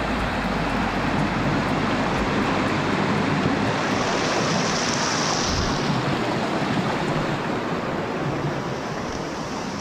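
Steady rushing of a mountain stream through a gorge.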